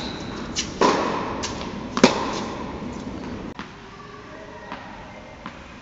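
Tennis ball struck by rackets and bouncing on an indoor hard court, each impact echoing around the hall: four sharp hits in the first two seconds or so, then only a few faint ticks.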